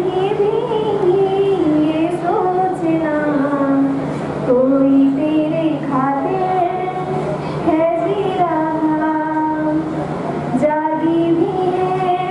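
A solo female voice singing a Hindi song, holding long notes that slide up and down between short breaths.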